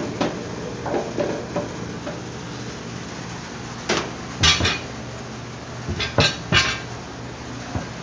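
Sharp metallic clinks and knocks from handling the sheet-metal parts of an air-conditioner unit. They come in small clusters, about a second in, around the middle and again near the end, over a steady low hum.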